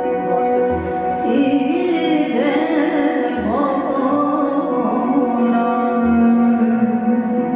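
Live electronic version of a Bengali folk song: a woman sings a wavering, ornamented melody over a sustained drone, with a deep bass pulse about every two and a half seconds.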